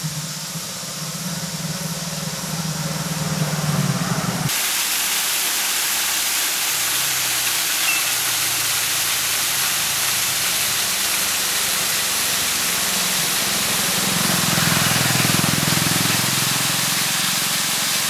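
For the first few seconds a motorcycle engine runs steadily as it comes along the road. The sound then changes abruptly to falling water: a small waterfall cascading down rock and splashing onto the rock below, a steady rushing hiss.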